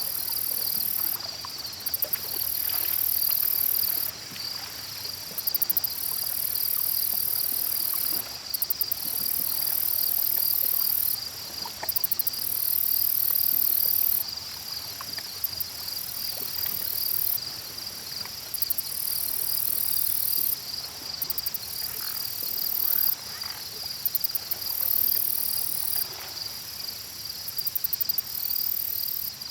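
Insect chorus at a lakeside: a steady, pulsing cricket trill under loud, very high buzzing insect calls, each a few seconds long and opening with rapid ticks, repeating with short gaps.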